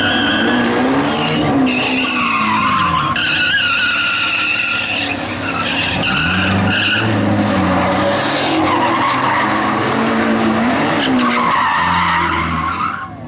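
Tyres squealing in long, wavering screeches as a vehicle spins donuts, with the engine revving up and down underneath. The squeal drops away near the end.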